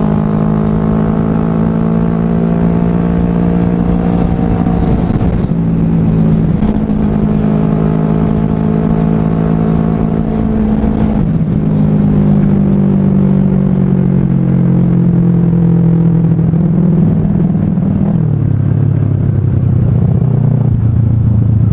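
Kawasaki Ninja 250 carburetted parallel-twin engine running under way at a steady cruise, with rushing wind noise. The engine note shifts a couple of times and drops lower near the end as the bike slows.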